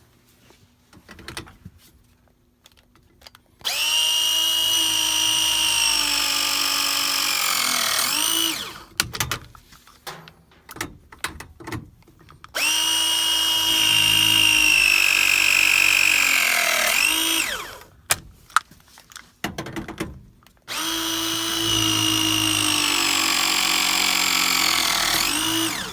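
Milwaukee M12 2473 Force Logic press tool pressing Viega press fittings three times. Each press is a motor whine of about five seconds that sinks slightly in pitch as it runs and ends in a quick swoop. Small handling clicks come between the presses.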